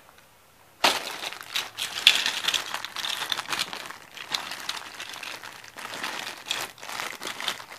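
Clear plastic zip-top bag full of toy cars crinkling as it is handled, starting about a second in and going on in quick crackles.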